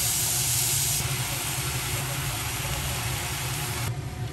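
Food sizzling in a frying pan, a steady dense hiss, over a steady low hum. The hiss drops in level about a second in and again near the end.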